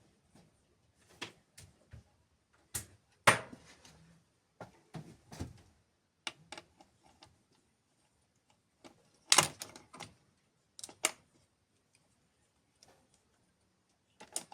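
Irregular clicks, taps and knocks of tools and engine parts being handled, with the sharpest knocks about three seconds in and a cluster about nine seconds in.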